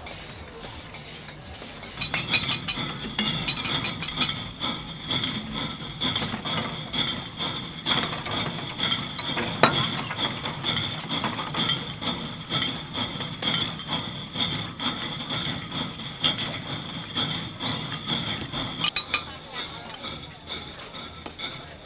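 Electric blender running with ice in the jar: a steady high whine with rattling and clicking, crushing ice for a frozen Coca-Cola slush. It starts abruptly about two seconds in and stops a few seconds before the end.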